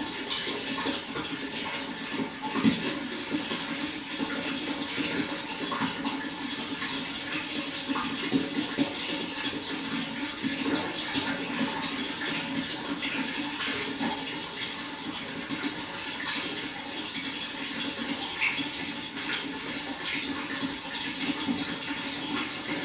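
Water flowing steadily, a continuous even splashing with many small droplet clicks.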